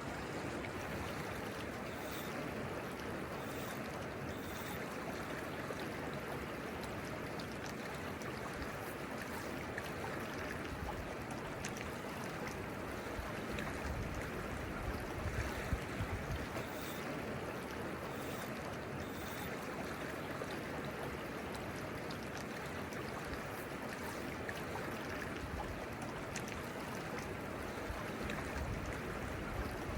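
Fast-moving river water rushing steadily over rocks.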